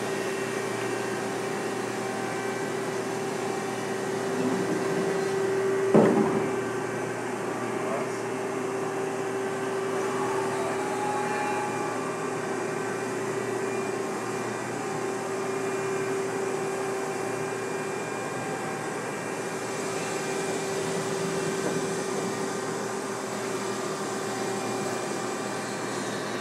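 Supermax Rebel vertical machining center running with a steady whine, with a single sharp knock about six seconds in.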